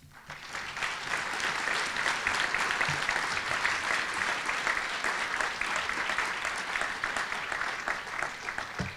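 An audience applauding, many hands clapping together, building over the first second and then holding steady.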